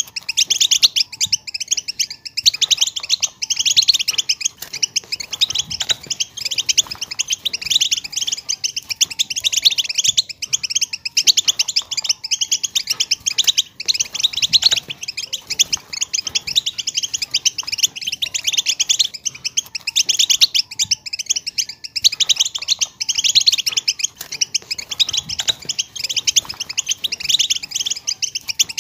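European goldfinch song in the Syrian 'Widani' style: a fast, unbroken stream of twittering trills and chirps.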